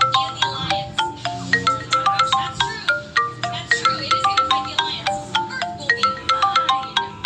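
Phone ringtone melody played in marimba-like mallet tones: a quick run of short, clean notes over a steady low accompaniment.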